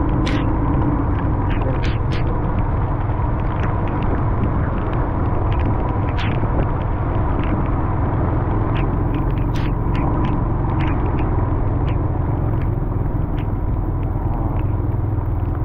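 Motorbike engine running steadily while riding, with a deep rumble and a steady hum. Scattered sharp ticks of raindrops strike the camera throughout.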